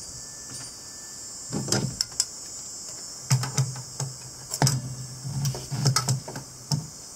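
Hand tools and locking pliers clicking and clinking against a bus heater's metal coolant hose fitting, in an irregular run of sharp clicks and dull knocks that grows busier after the first couple of seconds. A steady high insect chirring runs underneath.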